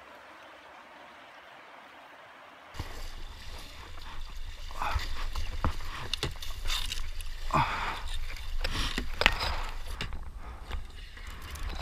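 Faint steady rush of the flooded creek, then from about three seconds in a kayak being paddled through a narrow brushy channel: paddle strokes splashing and dipping, with sharp knocks and scrapes, over a low wind rumble on the action camera's microphone.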